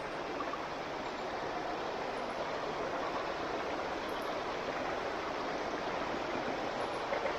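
Flowing water, a stream running with a steady, even rush.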